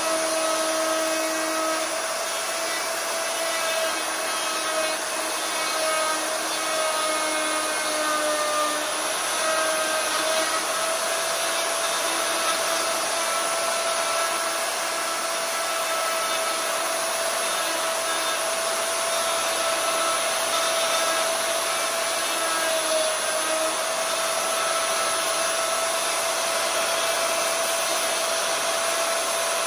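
Electric plunge router running steadily with a high whine, its straight bit cutting a hinge recess into a wooden door frame. The pitch dips slightly a couple of times as the bit takes load.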